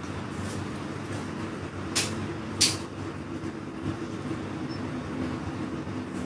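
Two sharp crunches, about two seconds in and half a second apart, of teeth biting into raw vegetables, over a steady low hum.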